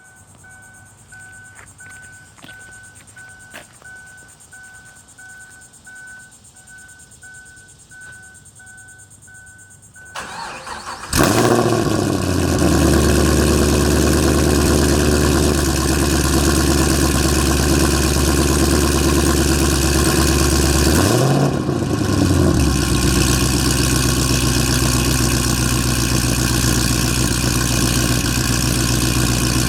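2010 Camaro SS 6.2-litre V8 cold start through long-tube headers, high-flow cats and a Stainless Works retro chambered exhaust. A repeating electronic chime beeps for the first ten seconds, then the starter cranks briefly, the engine catches and settles into a loud, steady high cold idle. About 21 seconds in, the engine speed dips for a moment and recovers.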